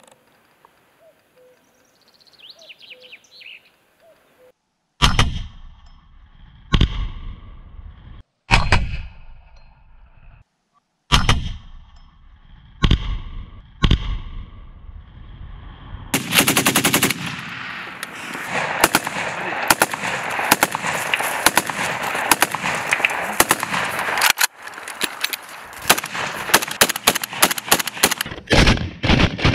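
About six single heavy blasts, one every one to two seconds, each trailing off in an echo: explosions and launcher shots on a vehicle target. Then sustained rapid automatic gunfire from assault rifles and a belt-fed machine gun for about thirteen seconds.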